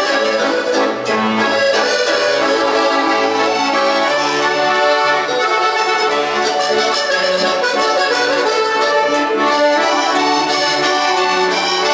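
Instrumental music with held, sustained notes and chords, playing at a steady level.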